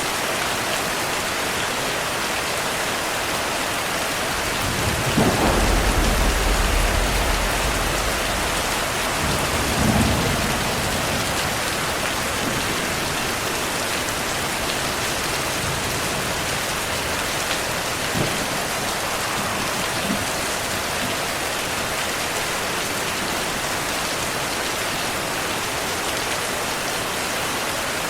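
Steady rain with thunder: a low rumble swells about five seconds in and lasts a few seconds, a shorter rumble comes near ten seconds, and two faint brief knocks of thunder come later.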